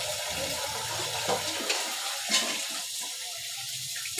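Tap water running into a sink while a metal pan is washed, with a few sharp knocks of the pan.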